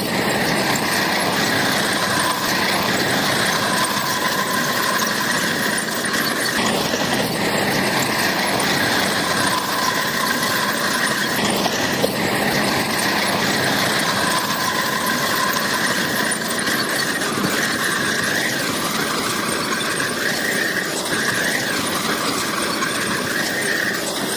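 Crawler bulldozer at work, its steel tracks squealing steadily over the engine's running noise.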